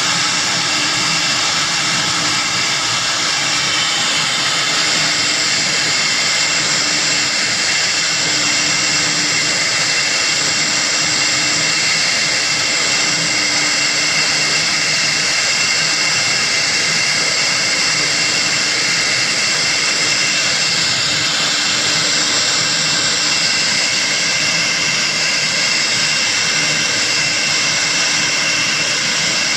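Spindle of a TR-1530 CNC router running at high speed while its bit engraves lines into a board. It is a steady high whine over a hiss of cutting, with a lower hum beneath.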